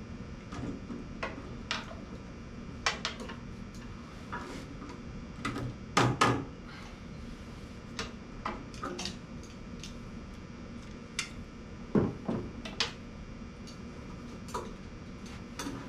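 Irregular clicks, scrapes and knocks of a screwdriver working at a stuck tractor air filter in its filter box, with the loudest knocks about six and twelve seconds in.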